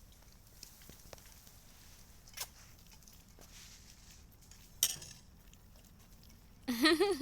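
Mostly quiet, with two short sharp clicks, then near the end a short, wavering vocal call.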